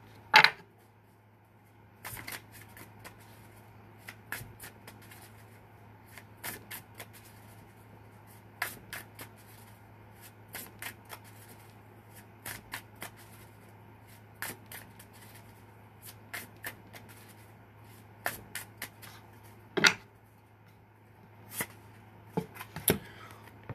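A deck of tarot cards being shuffled by hand: irregular runs of soft clicks and flicks as the cards slide and tap against each other, with a sharper snap near the start and another near the end.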